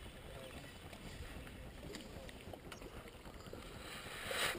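Faint open-air noise aboard a bass boat, with a few small clicks scattered through it. Just before the end a short rush of hissy noise swells up and fades.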